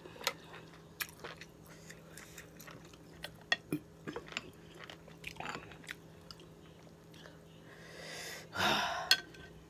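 A person chewing spicy green-lipped mussels, with scattered small wet mouth clicks and smacks, and a louder breathy rush near the end.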